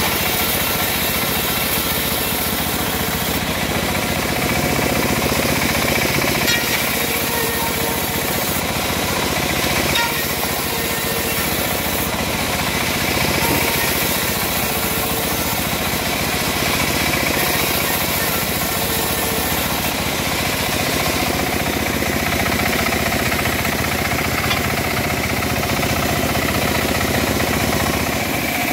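Homemade band sawmill running steadily on its engine while a teak board is fed through the band blade and sawn.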